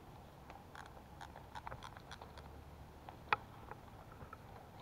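Faint, scattered sharp clicks and snaps: a quick irregular run of them about a second in, then one louder click a little past three seconds, over a low steady background.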